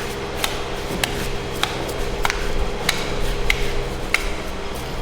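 A knife chopping against a cutting board in a steady rhythm, about seven strikes roughly 0.6 seconds apart, each with a short ringing click, over a steady machine hum.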